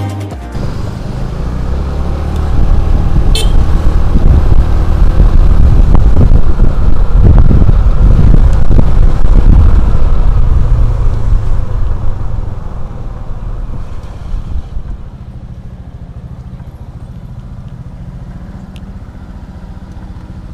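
Motor scooter being ridden, its small engine under heavy wind noise on the microphone; about two-thirds of the way through it slows down and then runs steadily at idle.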